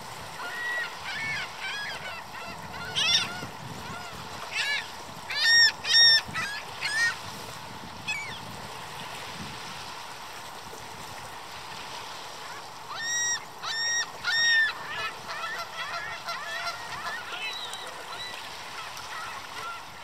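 Ring-billed gull calling loudly: a run of high-pitched, arched calls about five seconds in and a second run about thirteen seconds in, with fainter calls between and after. Small waves wash steadily against the shore.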